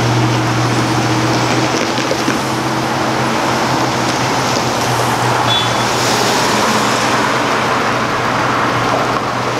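Road traffic at a busy street crossing, a steady wash of passing vehicles over a continuous low hum, with a brief high squeak about five and a half seconds in.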